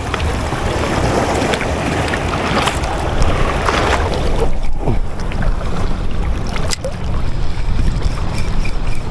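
Wind buffeting the microphone over small waves lapping at the shore. Near the end a spinning reel (a Ryobi HP 1000) is cranked, giving a faint regular ticking a few times a second; its owner calls the reel rough.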